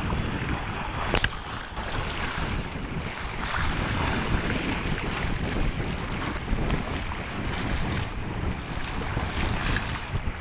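Wind buffeting the microphone over choppy sea water washing and splashing alongside a Hobie Tandem Island sailing kayak under way, with a single sharp click about a second in.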